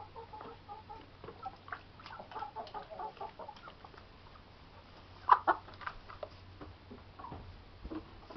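Domestic chickens clucking: a quick run of short clucks over the first few seconds, then scattered calls. About five seconds in comes a loud sharp knock, followed by a few lighter clicks.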